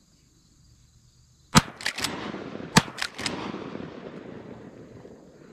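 Shotgun shots fired at a dove: a cluster of sharp blasts, the two loudest about a second apart, with lesser cracks after each and a rolling echo that fades over the next few seconds.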